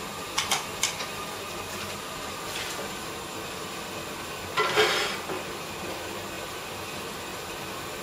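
Metal clinks of a steel glassblowing blowpipe being handled at an open pot furnace: two light clinks near the start and a louder metallic clatter lasting about half a second near the middle. A steady hiss runs underneath.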